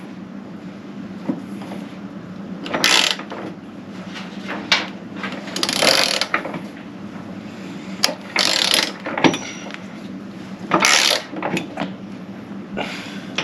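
Long-handled hand ratchet clicking in short bursts, about every two to three seconds, as a Jeep JL body-mount bolt is worked back and forth by hand to clear its threads rather than run in with an impact gun.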